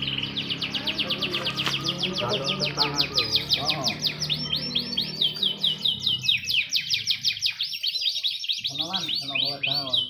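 Caged domestic canaries singing: a fast rolling trill of quick rising notes, several a second, carrying on without a break. A low steady hum sits under the first half.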